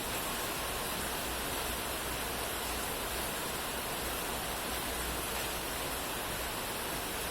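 Steady rain falling, a dense even hiss with no separate drops or thunder standing out.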